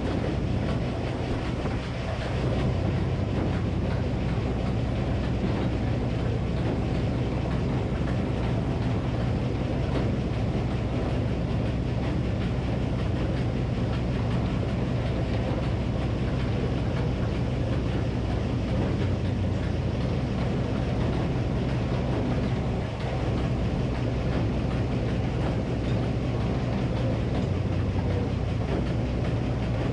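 Minneapolis-Moline HEB 605-cubic-inch engine running steadily, driving a Frick circular sawmill.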